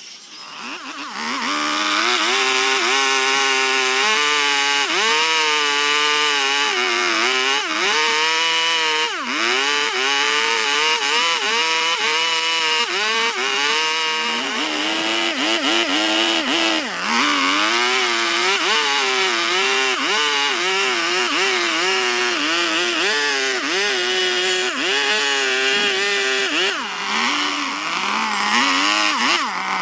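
Handheld power carving tool running while it cuts into wood, starting about a second in. Its motor pitch keeps dipping and recovering as the cutter bites and eases off, with a hiss of cutting over it.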